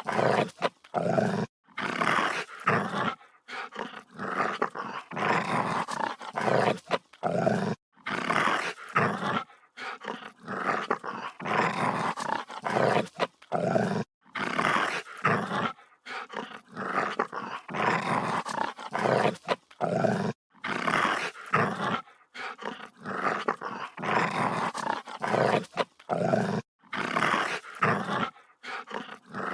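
Aggressive dog growling in repeated rough bouts of a second or two each, broken by short pauses.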